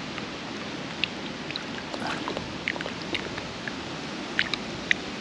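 Shallow lake water lapping and trickling around a hand and a pike held at the surface, with a scattering of small drips and plops.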